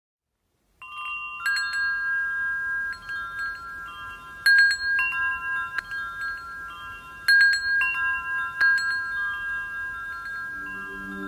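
Metal tube wind chime ringing, its tubes struck by the wooden clapper in irregular clusters of strikes with long, overlapping ringing tones. It starts about a second in, after silence. A lower sustained tone begins under the chimes near the end.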